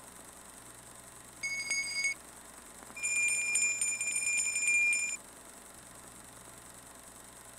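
Small hand bell ringing: a short ring about a second and a half in, then a louder stretch of rapid clapper strikes for about two seconds, each cut off short.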